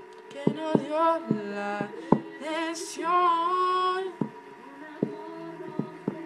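A young woman singing along to music, a few sung phrases with gliding, wavering notes over the first four seconds. Sharp clicks keep a beat throughout and run on after the singing stops.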